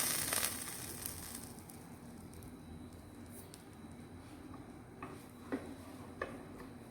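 Freshly popped popcorn in its pan: a brief rustle at the start, then a faint hiss with a few separate clicks near the end.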